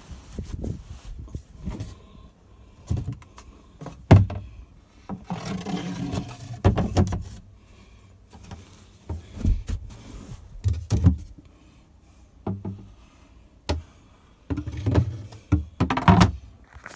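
Irregular thumps, knocks and rustling as cushions and locker lids are handled in a small boat cabin, with the phone brushing against upholstery fabric. The loudest knocks come near the end.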